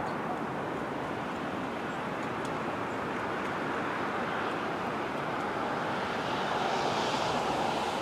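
Steady rushing outdoor background noise that grows a little louder about six and a half seconds in.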